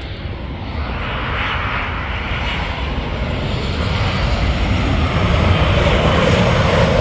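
Boeing 737 jet airliner flying low overhead on final approach with its landing gear down. Its jet engines make a rushing noise that grows steadily louder as it nears.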